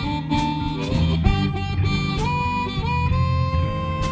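Instrumental break of a blues song: a full band with a lead wind instrument playing long held notes that slide into pitch, over bass and a steady drum beat.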